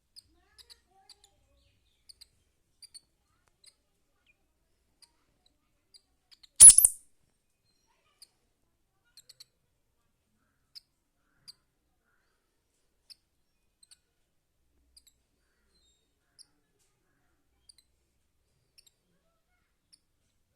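Squirrel chirping: faint, short, high-pitched chirps at irregular intervals, with one much louder sharp sound about six and a half seconds in.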